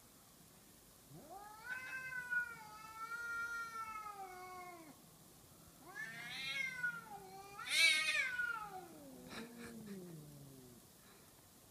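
Two cats caterwauling at each other: a long drawn-out yowl of about four seconds, then after a short pause another run of yowls. The loudest comes about eight seconds in, and the last one slides down into a low moan.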